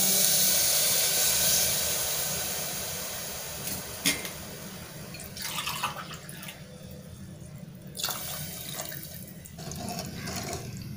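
Water poured in a stream into an aluminium pressure cooker of fried masala, the rush of the pour fading away over about three seconds. Later come a few short clatters and scrapes of a spatula stirring the liquid in the pot.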